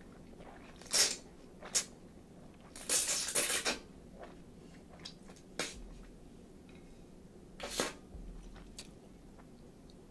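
Ramen noodles slurped up in about five short bursts, the longest around three seconds in.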